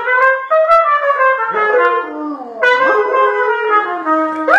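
Trumpet playing a run of held notes, with a dog howling along in sliding, rising glides between and under the notes.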